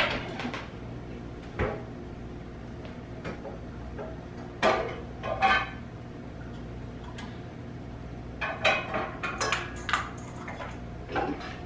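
Metal pots and pans clanking and clattering as they are rummaged through and pulled from a low kitchen cabinet. It comes as scattered knocks, with a few loud clanks about five seconds in and a cluster between eight and ten seconds.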